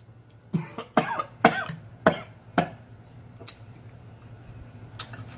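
A man coughing: about five short, sharp coughs in the first three seconds, then a pause. He is choking on a mouthful of food.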